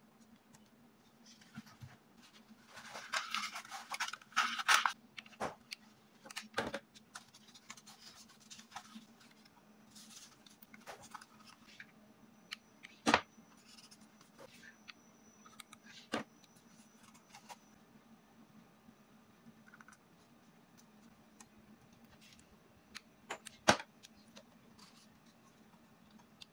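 Kraft paper and banknotes rustling and crinkling as they are rolled and shaped by hand, loudest in a burst a few seconds in, with several sharp clicks scattered through.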